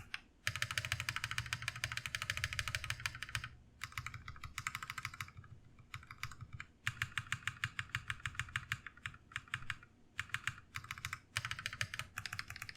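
Stabilized keys on a GMMK Pro, no switches fitted, pressed in quick runs. The stabilizers are Holee-modded and lubed with Krytox 205g0 to cut rattle, so each stroke is a short clack. There are a few brief pauses between the runs.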